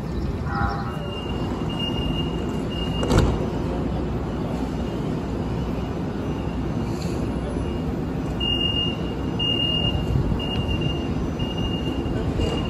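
Steady low rumble of light-rail trolleys standing at a station platform, with a high electronic beep repeating roughly once a second. A single sharp knock sounds about three seconds in.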